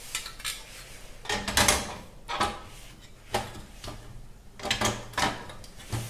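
Hans portable gas camping stove being put back together by hand: its metal top plate is set and slid into place on the stove body, making several short knocks, clatters and scrapes.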